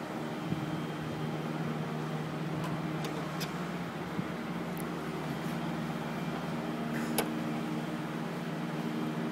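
Steady low mechanical hum made of several evenly spaced tones, with a few faint clicks, the clearest about three and a half and seven seconds in.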